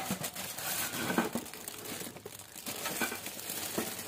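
Clear plastic packaging film crinkling in irregular crackles as it is handled.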